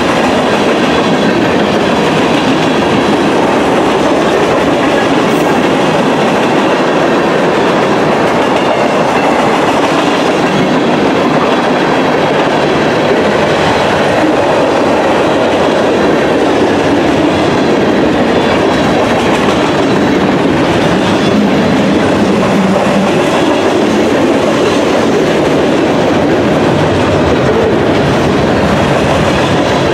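Freight train cars (covered hoppers, tank cars, boxcars) rolling past close by: the steady, loud noise of steel wheels running on rail.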